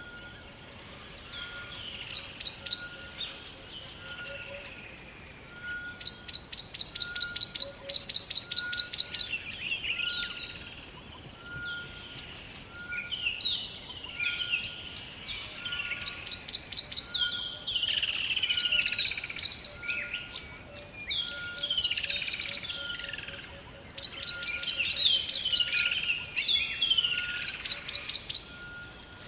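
Several songbirds singing in a forest chorus: bouts of rapid, evenly paced trills alternate with falling, warbled phrases. Under them a short, steady note repeats at an even pace about once a second.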